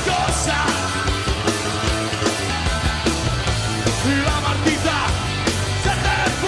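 Rock music with a driving drum beat, guitars and a singing voice.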